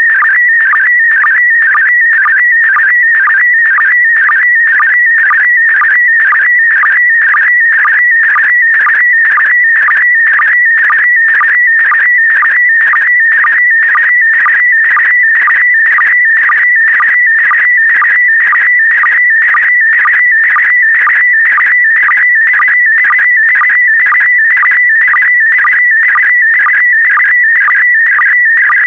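Slow-scan television (SSTV) image signal in PD120 mode: a continuous, loud, high warbling tone carrying picture lines, broken by a short regular dip about twice a second (the line sync pulses).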